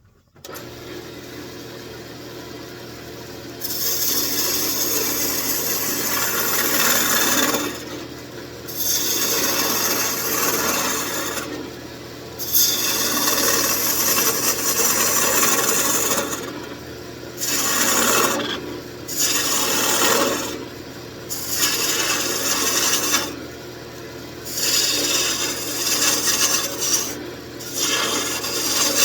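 Wood lathe motor running with a steady hum while a turning gouge cuts into the spinning wood in repeated scraping passes of one to four seconds, with short pauses between them.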